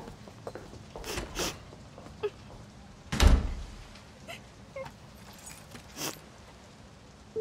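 Two knocks about a second in, then a door shutting with a heavy thud about three seconds in. After it come a few light clicks and clinks as a picture frame with shattered glass is handled on the floor.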